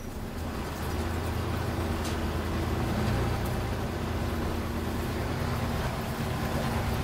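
Scania N94UB single-deck bus heard from inside the saloon while under way: a low, steady engine hum over road noise. It grows louder over the first few seconds, then holds level.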